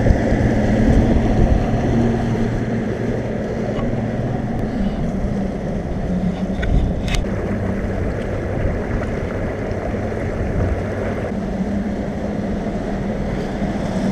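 Bass boat's outboard motor running steadily underway, with the rush of water along the hull.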